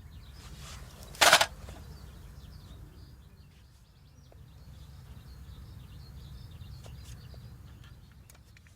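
Outdoor ambience with birds chirping and a steady low rumble, broken about a second in by one loud, short, sharp crack or scrape.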